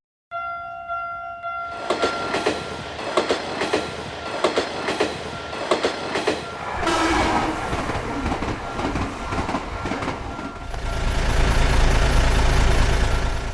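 Train running past a railroad crossing: its wheels clack irregularly over the rail joints, then build to a rushing, loud low rumble in the last few seconds as it passes close. A steady ringing tone runs underneath.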